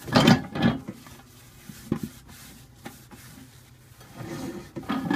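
Paper towel rubbed around inside a microwave to wipe off foaming cleaner, with two loud scrapes near the start, a few light knocks, and more rubbing near the end.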